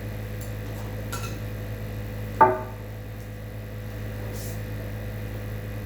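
A kitchen utensil strikes a dish once about two and a half seconds in, a sharp clink that rings briefly, with a few faint ticks before it. A steady low hum runs underneath.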